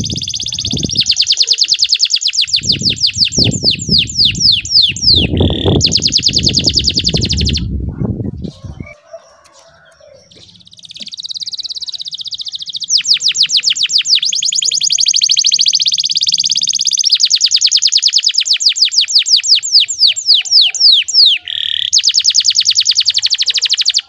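Domestic canary singing long, fast rolling trills and runs of quick down-swept notes, breaking off for about two seconds near the middle before rolling again. A low rumble sits under the song for the first third.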